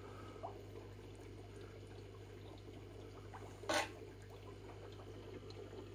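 Aquarium filter running: water trickling steadily into the tank over a low, even hum. One brief sharp noise about three and a half seconds in.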